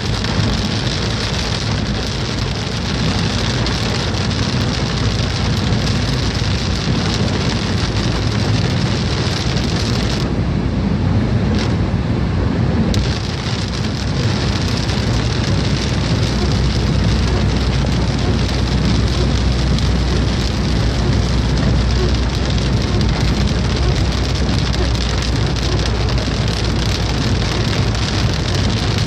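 Rain falling steadily with a continuous hiss and a low rumble underneath; the high hiss drops away for about three seconds near the middle.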